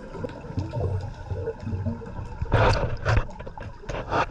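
Scuba divers' exhaled bubbles gurgling underwater in several short bursts, the loudest a little past halfway, over a low steady rumble of the sea.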